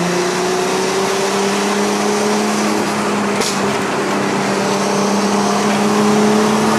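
Straight-piped Nissan RB25DET turbocharged straight-six heard from inside the cabin, pulling steadily with its note rising slowly. A single sharp click sounds about halfway through.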